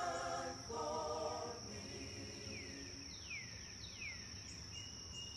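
Forest ambience: a steady high-pitched insect trill, with birds calling over it. There are two short pitched calls in the first two seconds, then a run of quick down-slurred whistles and a brief level whistle near the end.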